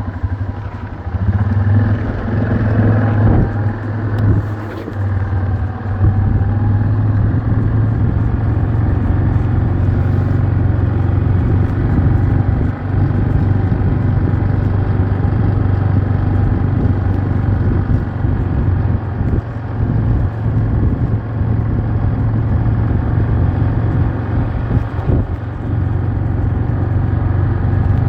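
A motor vehicle's engine running at a steady low drone, with a constant rumble beneath it.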